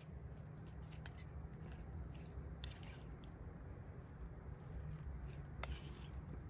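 Wooden spoon scooping chopped cucumber-and-tomato salad from a bowl: soft wet squishes and a few light clicks of spoon against bowl, over a steady low rumble.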